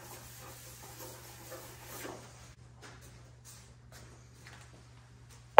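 Faint rustling and shuffling of a paper template being smoothed and a person moving on a concrete floor, over a steady low hum.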